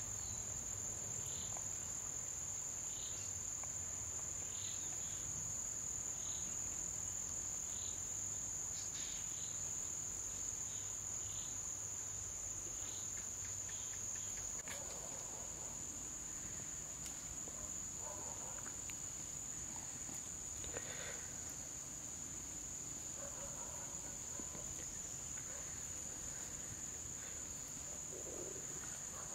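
Insects in vegetation making a steady high-pitched drone, with short faint chirps repeating about once a second during the first half.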